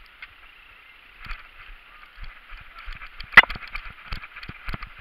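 Footsteps moving through dry leaf litter, irregular thumps with rustling over a steady hiss, and one sharp crack about three and a half seconds in.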